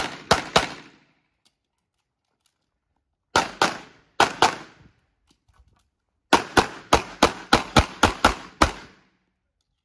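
Handgun shots fired in quick succession: two shots at the start, then two fast pairs a few seconds later, then a rapid string of about ten shots near the end, each with a short echo.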